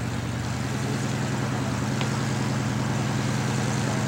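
An engine idling steadily, an even low hum with no change in speed. A faint click sounds about two seconds in.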